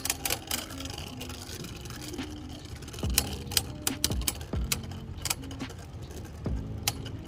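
Scattered plastic clicks and rattles from Beyblade spinning tops and their parts, over faint steady background music.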